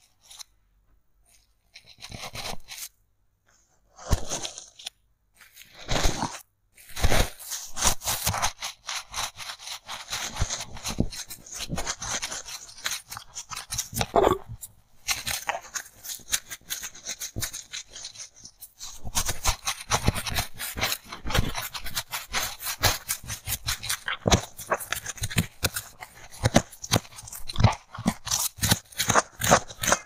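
Goose-feather ear-pick sticks scraping and poking into crumbly foam packed in a polystyrene block, making crackling, crunching scratches. The scratches come in short separate bursts at first and are nearly continuous from about seven seconds in.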